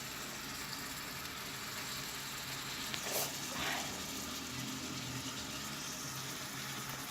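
Sausages and carrots frying in oil in a skillet: a steady, even sizzle, with two brief louder noises about halfway through.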